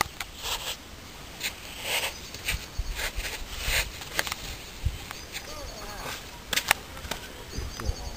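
Footsteps scrambling up a sandy slope: a run of irregular gritty crunches and scrapes, some of them loud.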